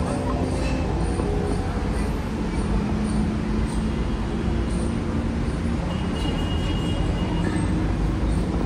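Steady low rumble of outdoor noise, with a few faint tones drifting through it.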